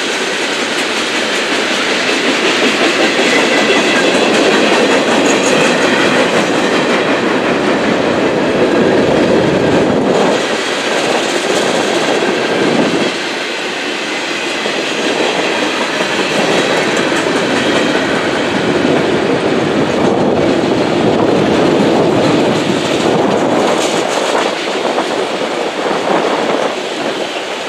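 Freight cars of a passing train rolling over the crossing: a steady loud rumble of steel wheels on rail with clickety-clack of wheels over the joints, dipping briefly about halfway through.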